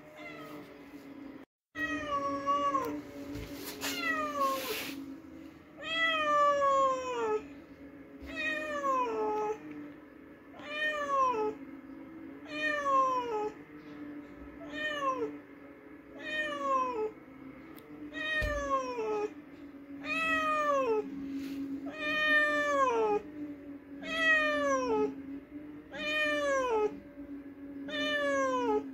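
Domestic cat meowing over and over, about one long meow every second and a half, each falling in pitch. The calls begin after a brief break about two seconds in.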